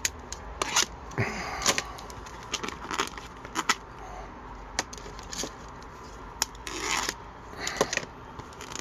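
A utility knife slitting and scraping the plastic shrink-wrap on a cardboard card box, with the film crinkling and scattered short clicks and scrapes as the box is handled.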